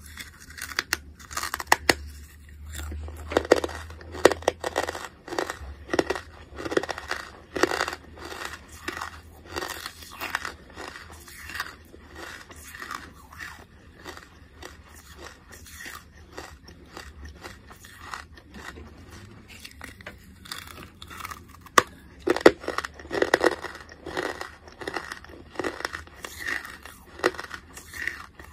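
A person biting and chewing a lump of charcoal, with crunching and crackling in the mouth. Louder runs of crunching come near the start and again about 22 seconds in.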